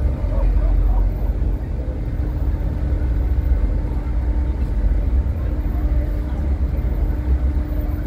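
Car ferry's engines running, a steady low rumble with a constant hum over it, while the ship lies at the dock with its ramp down. Passengers' voices are faintly mixed in.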